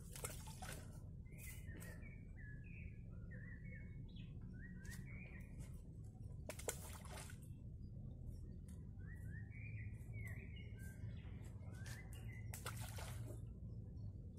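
A songbird sings in repeated phrases of short chirping notes over a steady low outdoor background. A few brief sharp noises cut in, the loudest about halfway through.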